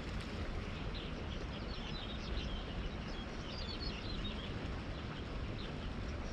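Small birds chirping, many short high calls scattered throughout, over a steady low background rumble.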